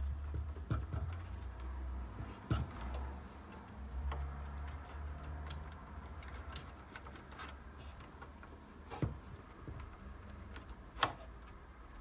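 Hands working inside a desktop PC's small-form-factor case: scattered clicks and taps of the plastic fan-cable connector and metal chassis as the CPU cooling fan cable is unplugged, over a low handling rumble, with a few sharper clicks.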